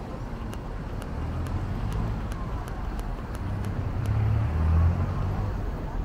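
City street traffic: a motor vehicle's engine hum swells and is loudest about five seconds in as it passes close, over steady traffic noise.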